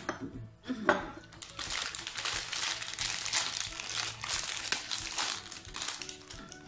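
Thin clear plastic food packaging crinkling and crackling as it is handled and its wrapping opened, a run of quick irregular crackles that starts about a second and a half in.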